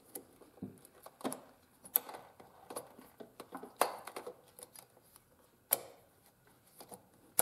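Small clicks, taps and short rubbing sounds of a metal carburetor being worked by hand into an unheated rubber intake boot, with a few sharper clicks among them.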